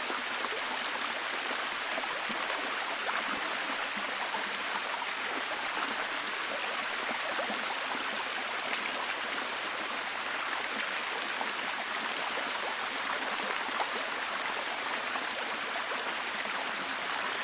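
Steady rain falling in a forest: an even hiss of water with many small drop ticks scattered through it.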